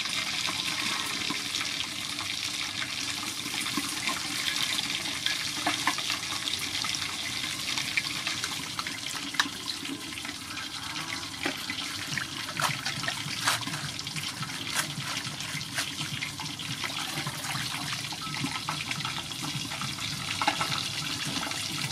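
Leafy greens being washed by hand in a steel bowl of water: sloshing and splashing, with many small drips and splashes.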